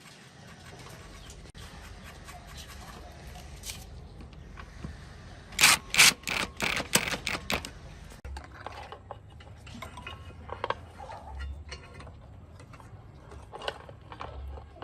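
A quick run of about a dozen sharp metallic clicks over two seconds, then scattered single clicks and light scraping, as of metal parts or tools being handled in a workshop.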